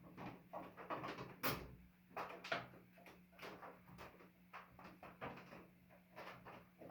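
Irregular clicks, knocks and clanks of metal parts being handled while a microwave oven is taken apart, with two louder clanks about one and a half seconds in and again a second later.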